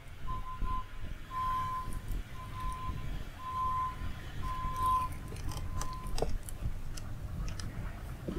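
Electronic beeping: one steady high-pitched tone sounding in irregular on-off beeps of uneven length, which stop about six seconds in, over a low rumble. A few light clicks and taps follow near the end.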